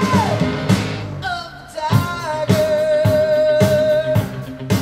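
A rock song played through a pair of Polk RTi A3 bookshelf speakers: a singer holds long notes over guitar and a drum beat that hits about twice a second. The first note slides down early on, and a second long note is held through the middle after a brief lull.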